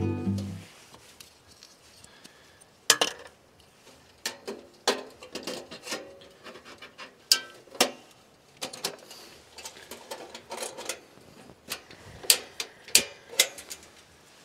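A red portable gas camping heater being handled and lit, with its gas canister fitted and its control knob worked: a string of sharp, separate clicks and knocks, about one a second, uneven in loudness.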